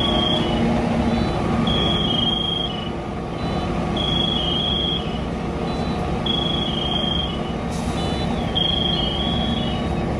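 A heavy vehicle's electronic warning alarm beeping: a high tone about a second long, repeating about every two seconds, over the steady low hum of idling diesel engines.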